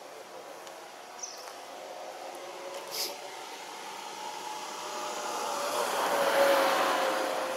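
A passing motor vehicle's engine: a hum that swells from about halfway through and is loudest near the end, with a steady tone that sinks slightly in pitch.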